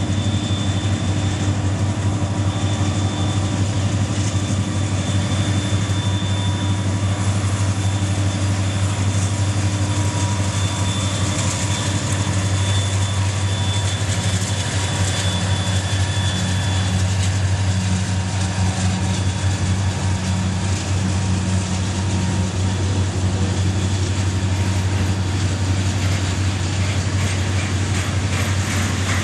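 CSX diesel freight train passing close by: a steady low locomotive drone over the rolling noise of wheels on the rails.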